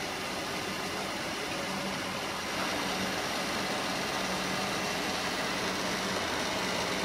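A 12 V 150 W car heater fan running steadily: an even rush of blown air with a faint low hum underneath.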